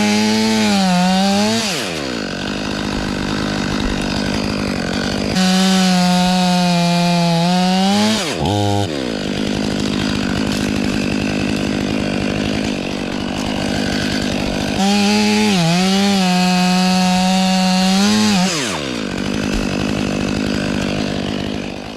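Chainsaw revving up into three cuts, each two to three and a half seconds long, its pitch sagging under load and picking up again. Between the cuts it runs at a lower, steady level.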